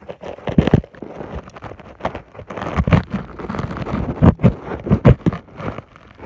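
Loud, close crackling rustle of dry grass and soil, with irregular knocks and thumps right at the microphone, as someone kneeling beside the phone works the ground and brushes against it.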